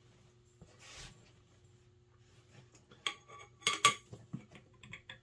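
Metal air-rifle regulator and valve parts clinking and tapping against each other as they are fitted: a short soft rustle about a second in, then a cluster of sharp metallic clinks about three to four seconds in, followed by a few lighter taps.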